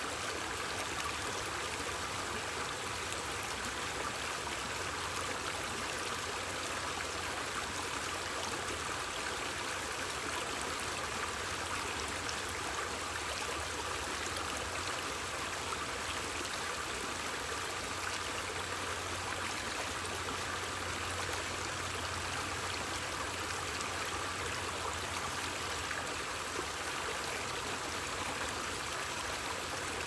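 Shallow rocky stream flowing steadily over stones and small drops.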